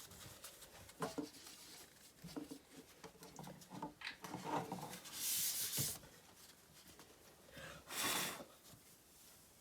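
Tissue wiping and rubbing over a graphics card's chip and board, with soft handling rustles, and two short hissing bursts about five and eight seconds in.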